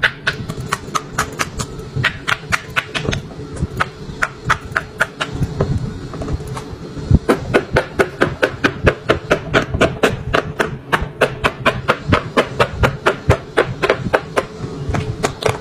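Bubbles of a large silicone pop-it board being pushed through with the fingers of both hands in quick succession: a rapid, uneven run of sharp pops, about four a second.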